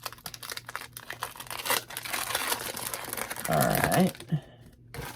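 Foil wrapper of a Pokémon card booster pack crinkling and rustling as it is handled and opened.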